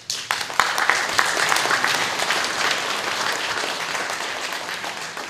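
A congregation applauding. The clapping starts suddenly, is fullest in the first couple of seconds, then slowly dies away.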